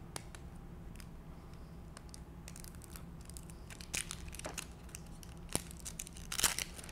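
Thin plastic wrapping being peeled and crinkled off an ink cartridge by hand: faint rustling and small crackles, with short busier flurries about two and a half and six and a half seconds in, and a single sharp tick a little after five seconds.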